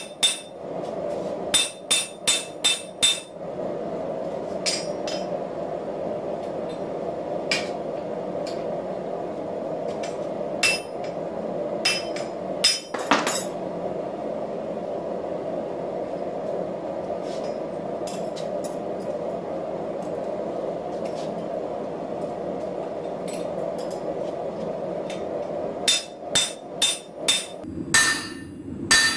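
Hand hammer striking a hot 1-inch steel bar while forging a 1/2-inch tenon: a quick run of about five blows at the start, scattered single blows in the middle, and another run of about six near the end. A steady background roar runs underneath.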